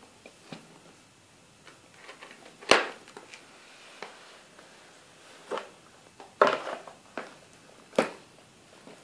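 Cardboard phone box handled and opened by hand on a wooden table: the inner box slides out of its sleeve with light rustling of card and a series of separate knocks and clicks as the box is set down and handled. The loudest knock comes nearly three seconds in.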